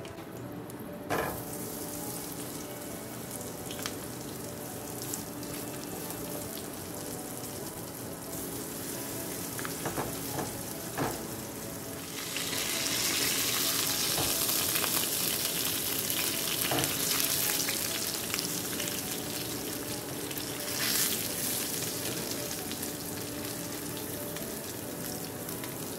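Breadcrumb-coated mullet fillets frying in hot oil in a nonstick skillet: a steady sizzle that gets louder about halfway through, with a few light clicks of tongs against the pan.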